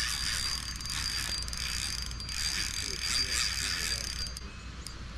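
Spinning reel being cranked, its gears and pawl whirring, as a hooked fish on a bent rod is reeled in. The cranking eases off about four seconds in.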